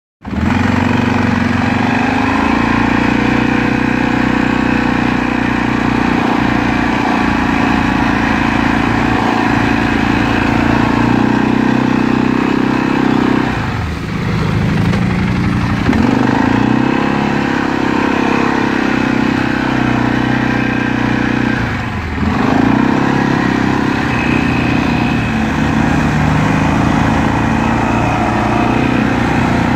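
Arctic Cat ATV engine running steadily as the quad rides slowly through mud, its note dipping briefly twice, about halfway through and again about three-quarters through, before picking back up.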